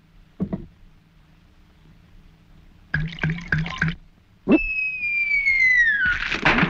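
A man drinking a glass of water with loud gurgling gulps. Midway a clear whistle slides down in pitch for about a second and a half, followed by more loud gurgling.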